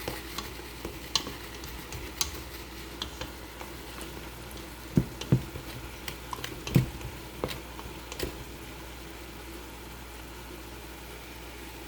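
Spoon stirring rice in a pot, with scattered clinks and knocks against the pot, the loudest clustered about five to eight seconds in, over a steady sizzle of cooking food.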